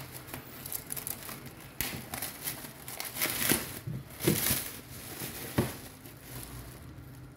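Clear plastic packing wrap crinkling as hands pull it back from a circuit board, in irregular bursts with a few sharp crackles, loudest around four seconds in.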